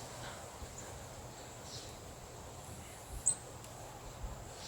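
Quiet outdoor air over fresh snow, with a brief high chirp about three seconds in and a few fainter ticks.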